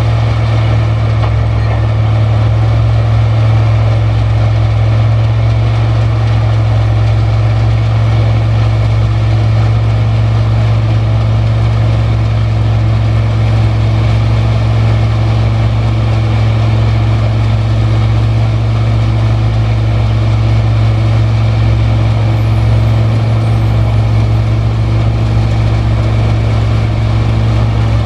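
Sugarcane harvester and the haul truck beside it running steadily, a constant low diesel engine drone.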